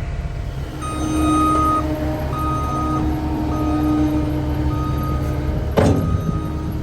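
Heavy equipment engine running steadily with its backup alarm beeping over and over, about once a second, while the machine reverses. A single sharp knock sounds about six seconds in.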